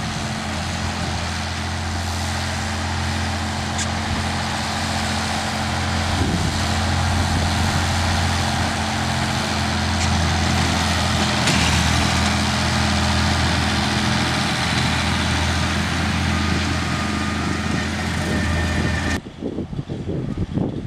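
Case tractor engine running steadily under load while its mowing deck cuts through brush. About ten seconds in, a sharp crack as the deck shatters a mesquite trunk. The engine sound cuts off suddenly near the end.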